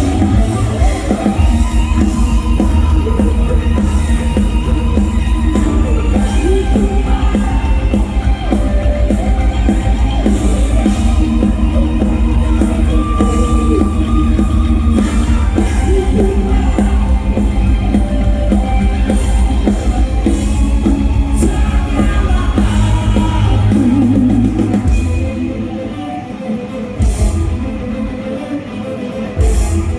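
Live rock band playing in a large hall: singing over drums, bass and electric guitars. About 25 seconds in, the heavy drums and bass drop away and it goes quieter, leaving mostly guitar.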